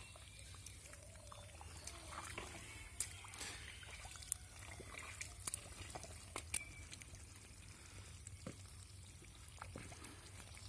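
Faint sloshing and trickling of water as bare legs wade through wet, shallow pond mud, with a few sharp clicks and knocks scattered through, the loudest about three and four seconds in.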